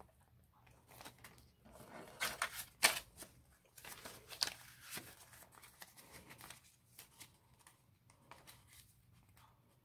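Paper banknotes rustling and a clear plastic zipper pouch crinkling as a stack of bills is handled and stuffed into it, in short irregular scratches, loudest around two to three seconds in.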